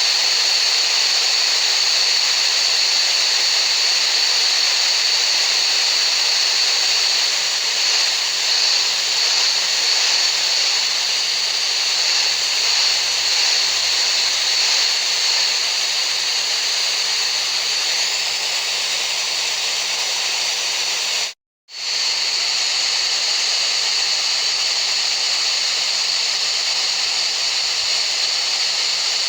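Steady high-pitched hiss of a tinnitus-masking noise track, with a brighter, whistle-like band near the top and almost no low rumble. It cuts out for a split second about two-thirds of the way through, then carries on unchanged.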